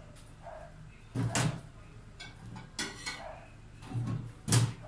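Metal ladle scraping and knocking against an aluminium wok while stirring sugar-coated banana slices in a dry, unheated pan, with no sizzle. There are three main scrapes, about one every second and a half.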